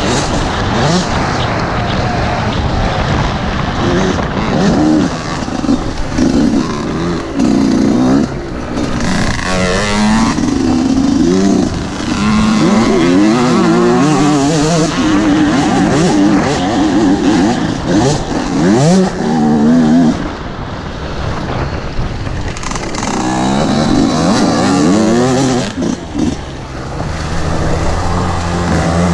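Dirt bike engine under throttle, its pitch climbing and dropping over and over with the revs, easing off briefly about two-thirds of the way through, with a rushing noise over it.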